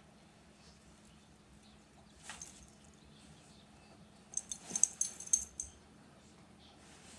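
A short rustle, then a cluster of quick, light metallic clinks like a small jingle shaken, about four to five and a half seconds in.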